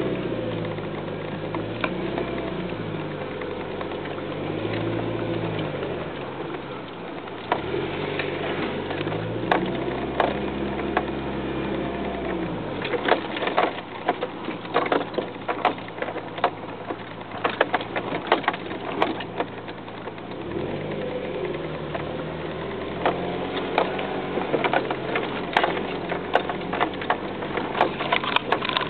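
A truck engine heard from inside the cab, its pitch rising and falling as the truck is driven through mud. From about halfway through, and again near the end, come bursts of sharp knocks and rattles as the truck jolts along the rough track.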